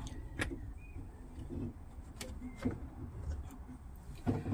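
Scattered light clicks and knocks of metal parts and tools being handled while reassembling a car's front suspension strut with a new top-mount bearing.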